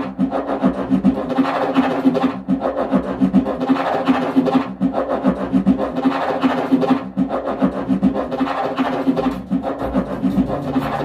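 Recorded music played over a home hi-fi system's loudspeakers, driven by AGD Production Audion monoblock amplifiers: a plucked string instrument over a steady low drone, the rhythm dropping away briefly about every two and a half seconds.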